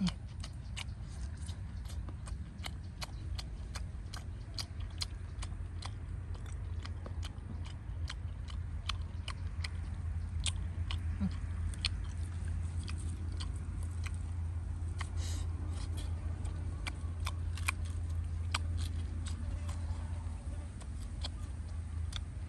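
Knife cutting and prying through a roasted pig leg's crisp skin and meat: a continuous run of sharp, irregular crackling clicks, several a second, over a low steady rumble.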